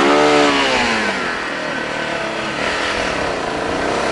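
Kawasaki KLR's single-cylinder engine running just after a push start, revving up and back down over about the first second, then pulling the bike away. The blown fuse has been bypassed with a solid piece of wire.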